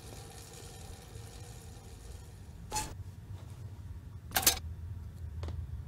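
A mountain bicycle coming to a stop and being handled, with a short rattling clack near three seconds in and a louder one about a second and a half later, over a steady low background hum.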